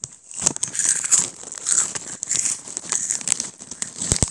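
Close-up crackling and crunching of Jagalchi snack crackers, a quick irregular string of crisp crackles.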